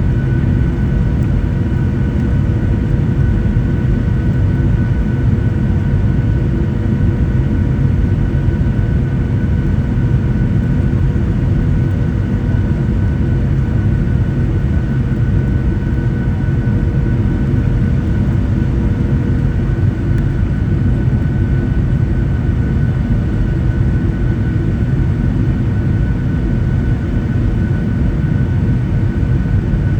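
Boeing 737-800 cabin noise during landing: a steady low rumble of engines and airflow with a few thin, constant whining tones, heard from inside the cabin.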